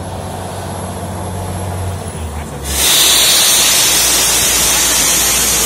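A steady low engine-like hum, then about three seconds in a sudden loud rushing hiss starts and holds steady, like air or water blasting out under pressure.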